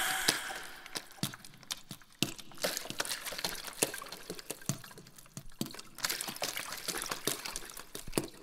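Water dripping: an irregular patter of small drops and clicks, several a second.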